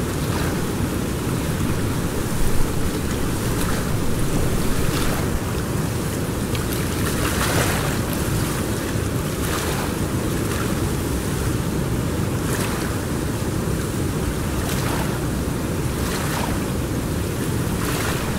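River water rushing steadily, with wind buffeting the microphone. A few short, sharper sounds stand out now and then, the loudest about two and a half seconds in.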